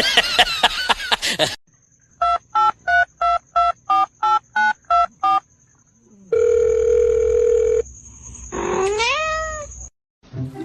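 Telephone keypad dialling tones: ten short two-note beeps in quick succession, then a steady tone for about a second and a half. Near the end comes a pitched call that rises and then levels off, much like a cat's meow.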